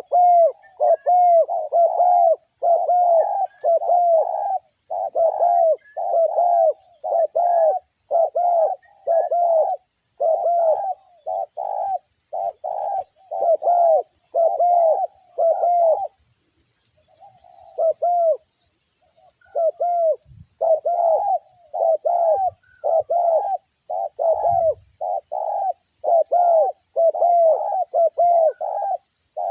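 Spotted doves cooing, a rapid run of short arched coo notes about two a second, with a short break partway through.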